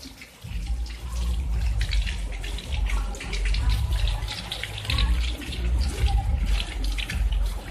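Water splashing and pattering on wet concrete as children's slippers slap through puddles, under a surging low rumble of wind on the microphone.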